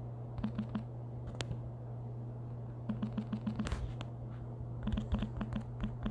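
Typing on a computer keyboard in three short runs of quick clicks, over a steady low electrical hum.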